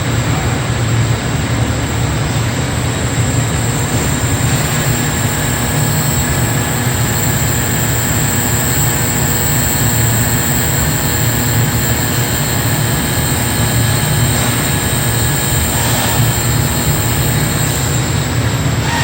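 Steady factory-floor machinery noise: a constant low hum under an even hiss, with a few faint steady tones above it.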